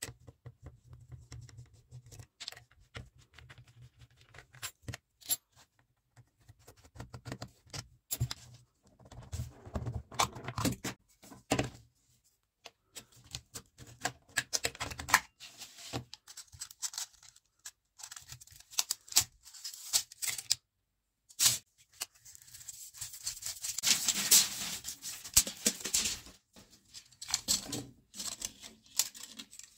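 Handling noise from taking apart a plastic tape measure: scattered small clicks and taps of a screwdriver, plastic case parts and the steel blade reel, with a longer stretch of rustling and scraping about three-quarters of the way through.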